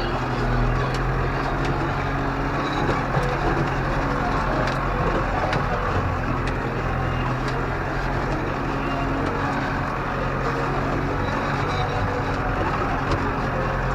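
Farm tractor engine running steadily while pulling a field roller, a constant low drone with scattered light ticks and rattles.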